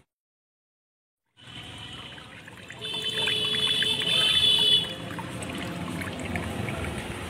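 Watermelon juice trickling from a plastic tap into a glass, starting after about a second and a half of silence. In the middle a steady high tone sounds for about two seconds, louder than the trickle.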